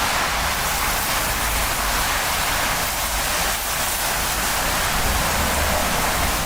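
Severe windstorm with heavy rain: a steady, even rushing hiss.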